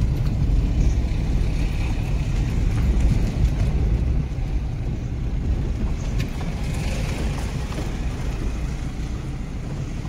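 Steady low rumble of a car's engine and tyres, heard from inside the cabin while driving.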